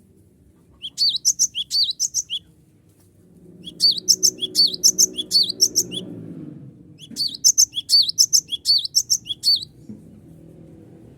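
Cinereous tit (gelatik batu) singing hard: three bouts of quick, repeated high notes, each lasting about two seconds with short pauses between.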